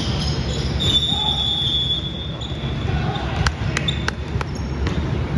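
Basketball bouncing on a hall floor during a game, with a quick run of four sharp bounces a little past the middle, over a steady hubbub of players and spectators in the hall.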